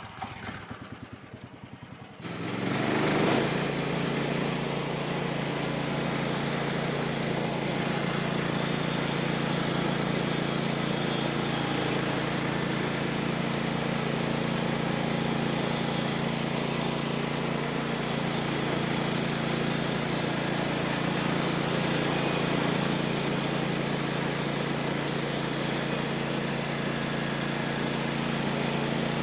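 Small gasoline engine of a portable bandsaw sawmill turning over for about two seconds, then catching and running steadily at a constant speed.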